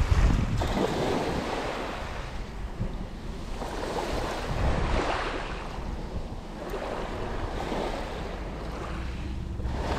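Sea waves washing on the shore with wind buffeting the microphone, a steady noise that swells and eases.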